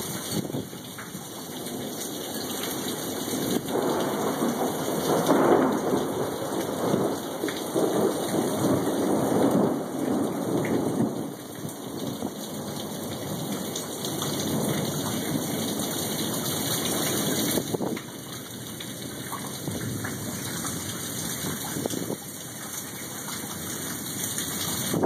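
Steady rain falling during a thunderstorm, with a long roll of thunder that swells a few seconds in and dies away after about ten seconds.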